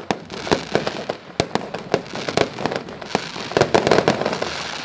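Aerial fireworks bursting: a rapid, irregular series of sharp bangs over a continuous rumble, thickening into a dense cluster of bangs about three and a half seconds in.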